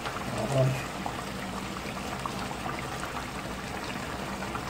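Stew boiling in a pan: a steady bubbling hiss with small pops and crackles.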